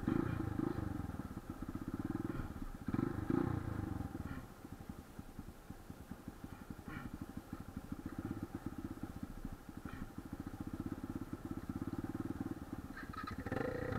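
Motorcycle engine idling with a rapid putter, revved up briefly twice in the first few seconds, then settling to a quieter, steady idle.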